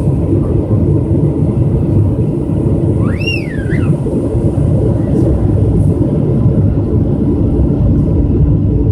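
Steady cabin noise of a Boeing 777-200 descending toward landing, heard from inside the cabin: a loud, even low rumble of engines and airflow. About three seconds in, a short high squeal rises and falls once.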